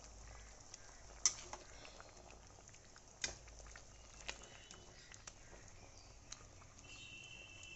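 Egg curry gravy simmering faintly in a pot, with a few sharp clicks of a metal spatula against the pot as omelette pieces are stirred in; the loudest click comes about a second in.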